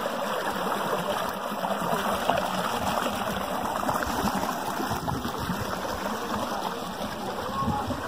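Shallow, sandy stream water running and rippling over rocks and a small drop, with splashing from feet wading through it.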